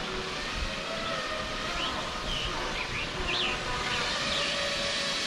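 FPV quadcopter motors buzzing and whining steadily as the drone flies low, picked up by a camera sitting on the ground. A few short high chirps come in around the middle.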